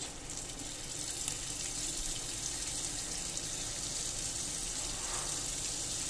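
Red tomato paste sizzling steadily in hot ghee in a steel kadhai as spoonfuls of it are added.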